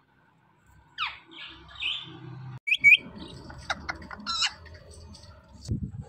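Indian ringneck parakeets calling: a loud sweeping squawk about a second in, then harsh chatter, a sharp double screech near the middle, and several short squawks after it.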